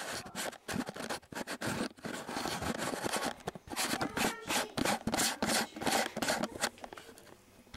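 Camera handling noise: fingers rubbing and scraping over the camera body and microphone in irregular, scratchy strokes.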